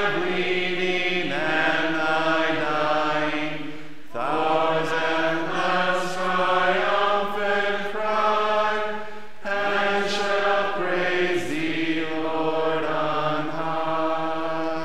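Slow unaccompanied singing in long held notes, with short breaks between phrases about four and nine and a half seconds in.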